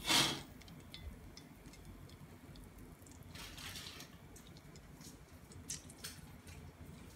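Steel wok with a little oil heating on a gas burner. A short noisy burst at the very start, then quiet with faint crackles and a few small ticks near the end.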